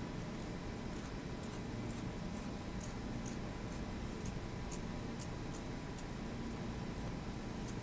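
Fiber scissors snipping through the aramid yarn strength member of a fiber optic cable: a run of short, crisp snips, about two a second, stopping near the end.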